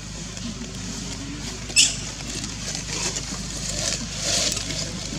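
Baby monkey giving a single sharp, high squeal about two seconds in, followed by scratchy rustling, over a steady low hum.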